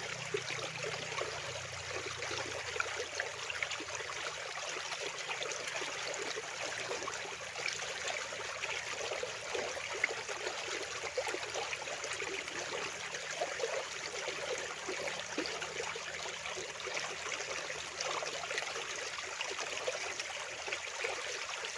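Fast-flowing water rushing and splashing steadily, with no pauses.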